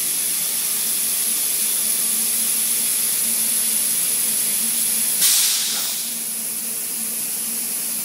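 Steady hiss of compressed air from the pneumatic vacuum suction-cup grippers holding the aluminium sheet, over a faint low hum. About five seconds in comes a short, louder burst of air, after which the hiss settles a little quieter.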